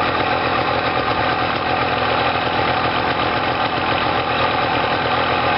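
Yamaha TY 125's two-stroke single-cylinder engine idling steadily, warm, while the carburettor's mixture screw is set.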